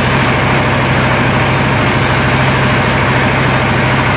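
Motor boat engine running steadily with a deep, even hum, under a broad rush of noise.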